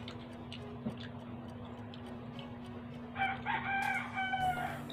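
A rooster crows once near the end, a single drawn-out call of about a second and a half that falls slightly as it ends. Under it runs a faint, steady ticking about twice a second.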